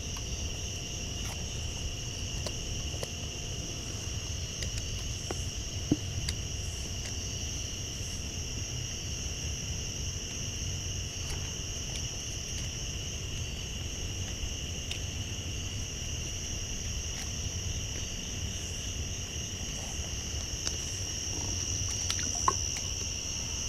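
A steady, unbroken high-pitched insect chorus over a low steady rumble, with a sharp click about six seconds in and another near the end.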